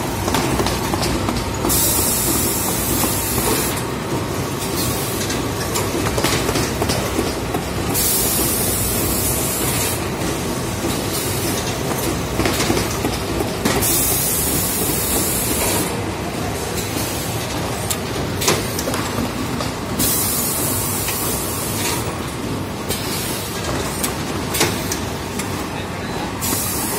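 Fully automatic high-speed strapping machine and its powered roller conveyors running with a steady mechanical clatter. Bursts of high hiss come about every six seconds, with an occasional sharp clack.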